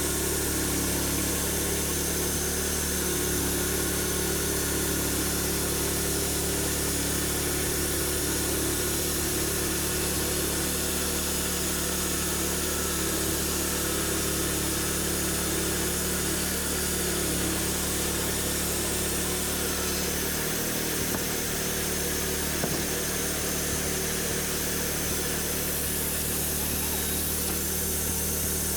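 Sawmill running steadily, its engine going at an even speed with a constant hiss over it as the saw cuts through an oak log.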